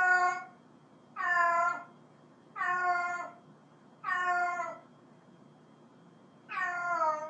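A cat meowing over and over: five separate meows, each under a second long and dropping in pitch at its end, coming about every second and a half, with a longer pause before the last.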